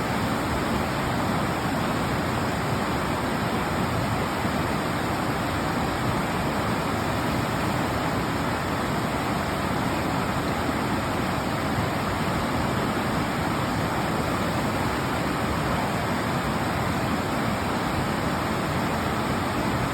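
Fast mountain river rushing over rocks: a steady, unbroken roar of water with no breaks.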